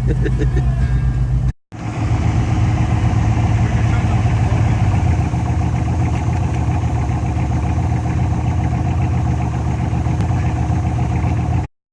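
Off-road truck engine running steadily at low revs, broken off briefly about a second and a half in, then running on until it cuts off suddenly near the end.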